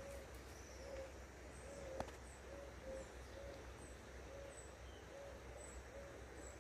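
A bird calling in soft, short hooting notes, repeated over and over at about two a second, with faint high chirps above it. A single sharp click about two seconds in.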